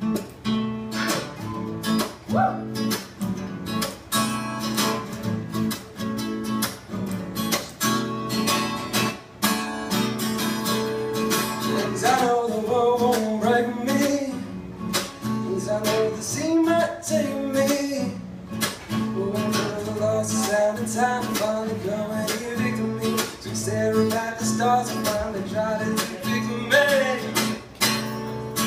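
Live solo acoustic guitar strummed in a steady rhythm, with a man's singing voice coming in about twelve seconds in and carrying on over the strumming.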